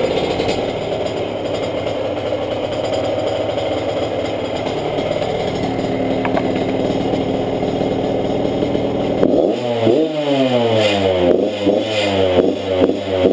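1994 Yamaha YZ80's two-stroke single-cylinder engine, warmed up, idling steadily, then revved in a series of quick throttle blips from about nine seconds in.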